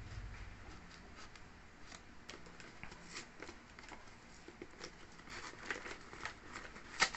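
Quiet rustling and crinkling of a plastic mailer bag and packing tape being cut and torn off a cardboard box, a run of short scattered crackles, with a louder one near the end.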